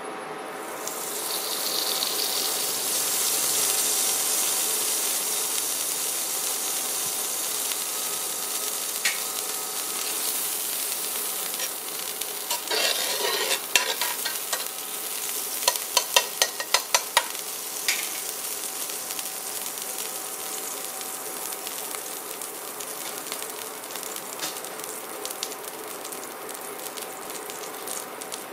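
Butter sizzling as it melts in a hot cast-iron skillet. The sizzle swells about a second in and slowly dies down. Midway through, metal tongs click and scrape against the pan in a quick run of taps.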